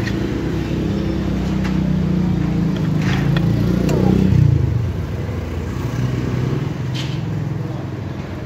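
A motor vehicle's engine passing close by on the road: it grows louder to a peak about four seconds in, its pitch dropping as it goes past, then fades. A few sharp knocks sound over it.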